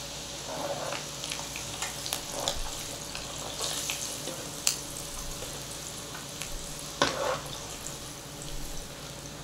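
Floured dried squid strips deep-frying in hot oil in a pan, a steady sizzle. A few sharp clicks of a mesh strainer against the pan as the strips are lifted out, the loudest about seven seconds in.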